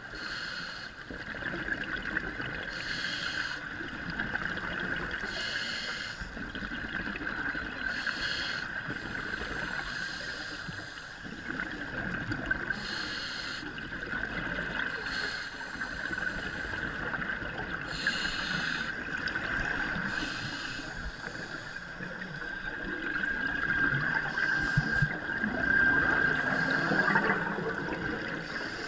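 Scuba diving underwater, heard through a regulator: a short hiss about every two to three seconds with bubbling in between, over a steady high hum. The bubbling gets louder near the end as exhaled bubbles stream past.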